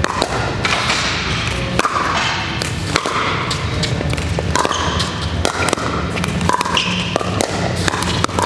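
Pickleball paddles hitting a plastic pickleball in doubles rallies, a scatter of sharp pops, some from the neighbouring courts, ringing in a large gym hall.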